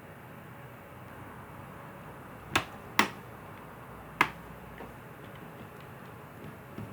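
Back cover of a Dell Latitude E5470 laptop being pressed onto the base: three sharp clicks, two close together and one a little over a second later, as its locking clips snap into place.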